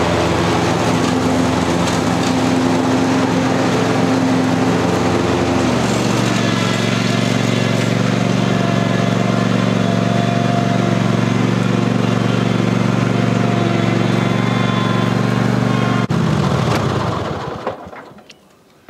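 Engine of a Cub Cadet Ultima ZTX zero-turn mower running steadily as it is driven across grass. Its note drops to a lower, steady pitch about six seconds in. Near the end the engine is switched off and winds down to a stop.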